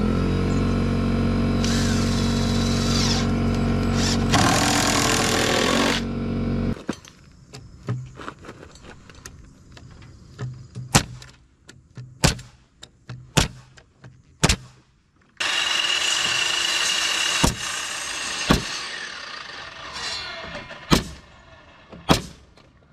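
Power drill running in two long bursts, the first with rising surges of noise as it bites. A string of sharp knocks comes between the bursts and after them. The sound is of a wooden spreader being fastened between two skids.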